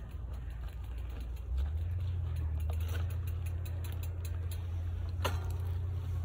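Wind buffeting the microphone: a low, steady rumble that grows louder about a second and a half in, with light ticks and a brief falling squeak about five seconds in.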